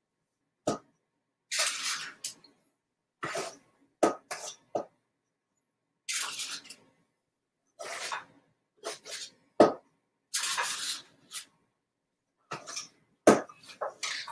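Metal ice cream scoop scraping thick brownie batter and knocking against a metal muffin tin while portioning it. It comes as a string of short scrapes and sharp clicks every second or two, with silence between them.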